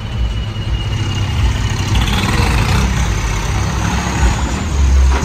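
Tractor diesel engines running as a John Deere tractor drives slowly past, with a second tractor following close behind.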